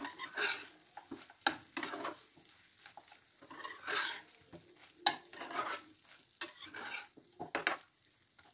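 Spatula stirring and tossing chicken pieces in a frying pan: irregular sharp taps and scrapes of the spatula against the pan between softer swishes of the food being turned.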